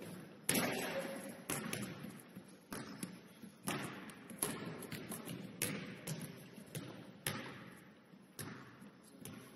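Basketballs bouncing on a hardwood gym floor, a string of sharp thuds at uneven spacing, roughly one a second, each ringing on in the gym's echo; the loudest comes about half a second in.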